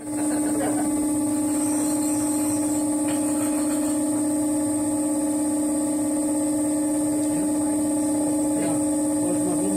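A steady, even hum with one strong low tone, like an electric motor or mains hum, starting abruptly; faint voices come in near the end.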